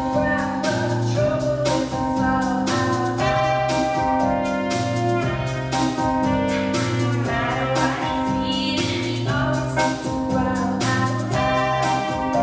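Live pop band playing a song with a steady beat, trumpet and keyboards, and a woman singing into a handheld microphone.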